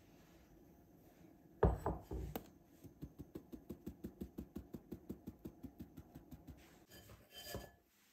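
Metal mesh sieve full of flour being tapped to sift it into a bowl: a loud knock about one and a half seconds in, then a fast, even run of light taps, about five a second, for several seconds, and a couple of last knocks near the end.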